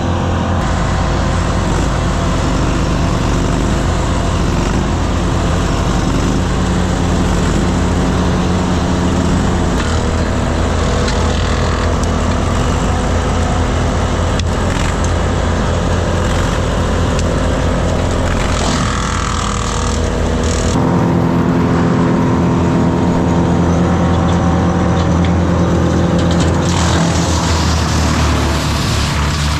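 Large engine of work machinery running steadily, its pitch stepping to a new speed about ten seconds in and again about twenty-one seconds in.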